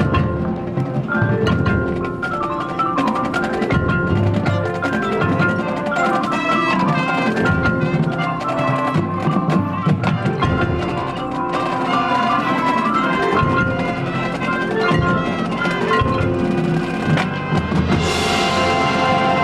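High school marching band playing its field show, with mallet percussion such as marimba, xylophone and chimes prominent over drums and sustained band chords. A bright crash comes near the end.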